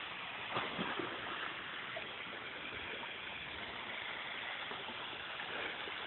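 Steady rush of running water, with a couple of faint knocks about half a second to a second in.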